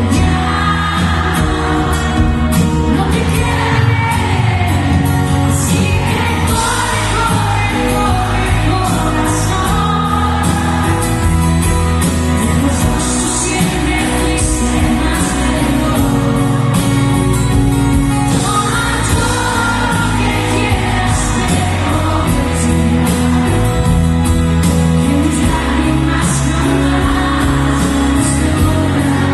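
Live pop band playing loud through a concert sound system: a lead vocal sung over keyboard, acoustic guitar, bass and drums.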